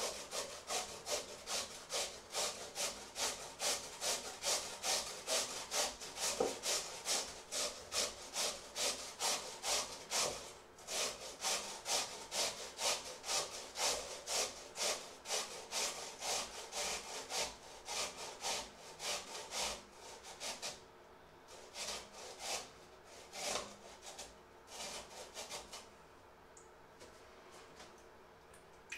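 Peeled boiled potato grated on a metal hand grater over a stainless steel bowl: rhythmic rasping strokes about two a second, growing sparser and more irregular with short pauses in the last third.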